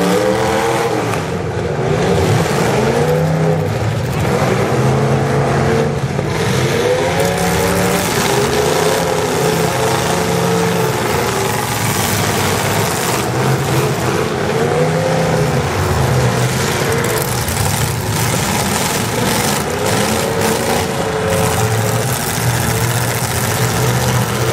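Demolition derby car engines revving hard over a continuous loud rumble, their pitch rising and falling again and again.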